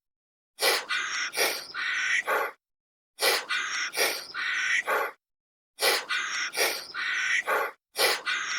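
A short animal-call recording played in a loop: a few sharp clicks and several high calls, repeated identically three times with dead silence between repeats, a fourth starting near the end.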